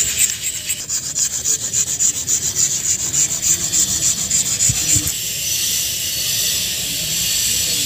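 Carved sandstone being rubbed by hand with a stone to finish and clean the carving, in quick scraping strokes about three or four a second. About five seconds in, the strokes stop and a steady hiss takes over.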